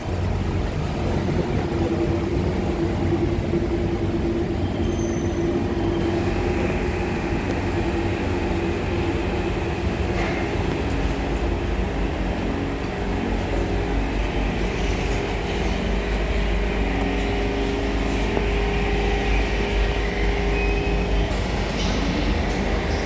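Interior sound of a Siemens C651 MRT train: a steady low rumble from the running gear with a steady hum from the train's equipment, the rumble growing stronger over the second half.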